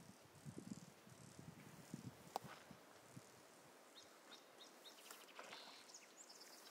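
Near silence: faint streamside outdoor ambience with a few soft low thumps in the first two seconds and some faint, short, high bird chirps later on.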